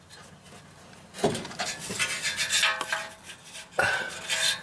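Metal clinking and scraping as parts are handled and shifted under the truck. It comes in two spells: one starting about a second in and lasting about two seconds, and a shorter one near the end.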